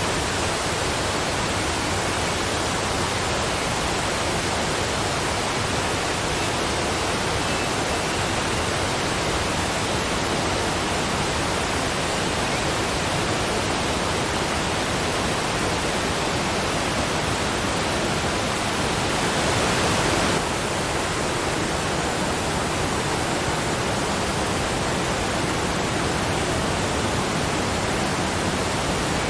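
Waterfall: water pouring steadily with an even rushing hiss, swelling slightly for a second or so about twenty seconds in.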